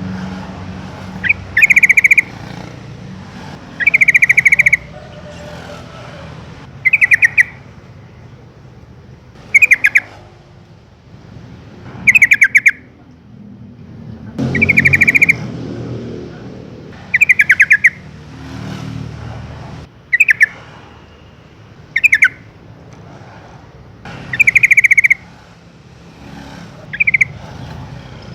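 Yellow-vented bulbul calling in short, loud, bubbly phrases, one about every two seconds, over a low background rumble.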